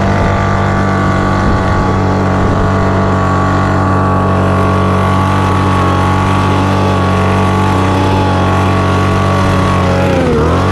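Petrol leaf blower running at full throttle, a loud, steady engine note with air rushing from the nozzle as it blows straw dust and chaff off a round baler. Near the end the throttle is eased and the engine note drops and wavers.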